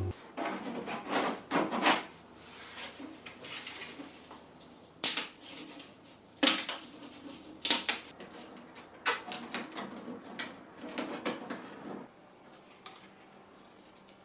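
Hand work on an old chest: irregular knocks and sharp clicks mixed with rubbing and scraping, with the loudest clicks about five, six and a half and eight seconds in, dying away about twelve seconds in.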